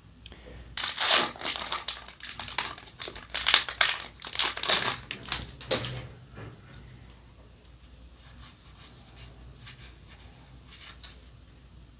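Yu-Gi-Oh! trading cards and pack wrapping being handled: loud crinkling and rustling for about five seconds, then softer, sparser clicks as the cards are shuffled through.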